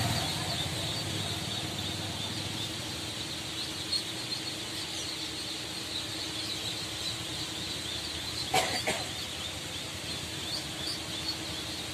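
A pen of hundreds of ducklings and chicks peeping continuously, a dense chorus of short high cheeps. A brief knock sounds about two-thirds of the way through.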